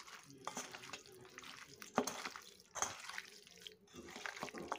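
A hand mixing raw chicken pieces with yogurt and spice powders in a stainless steel bowl, giving faint, irregular squishing sounds, one sharper about two seconds in.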